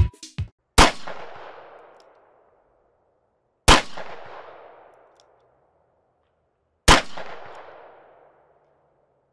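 Three single shots from a Ruger SP101 Match Champion .357 Magnum revolver, about three seconds apart. Each is a sharp crack followed by a long fading echo.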